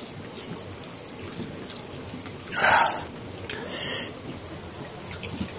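Wet, squishy eating sounds of rice and pork curry being mixed and handled by hand on a steel plate, with two short louder wet smacks around the middle.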